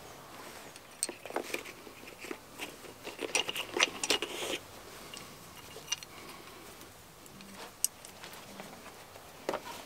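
Scattered clicks, scrapes and rustles of a knife being handled and drawn from a leather sheath, busiest from about one to four and a half seconds in, with a few single ticks later.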